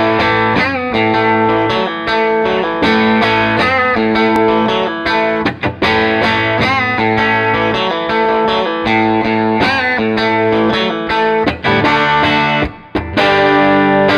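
Electric guitar, a Telecaster-style solid body, played through a small Fender tube combo amp: ringing chords and riffs with several bent notes, and a brief pause near the end.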